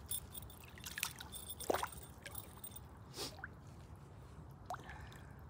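Small splashes and trickling water as a landing net is lowered into a lake and two carp swim out of it. A few short, irregular splashes, the loudest just under two seconds in.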